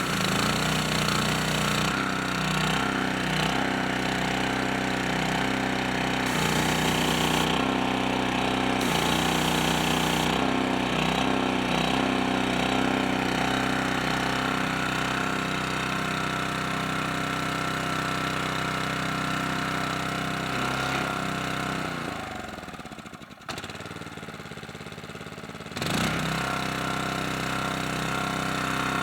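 The small gasoline engine of an older Falkenburg pressure washer running steadily. About two-thirds of the way in its pitch falls and the sound drops away, then it comes back suddenly at full level a few seconds later.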